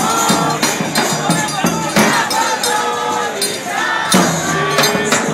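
Live forró pé-de-serra music: accordion and voices over a steady beat of regular percussion strikes, with crowd voices mixed in.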